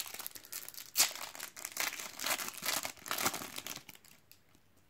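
Foil wrapper of a Panini trading-card sachet being torn open and crinkled by hand, with a sharp rip about a second in followed by irregular crinkling.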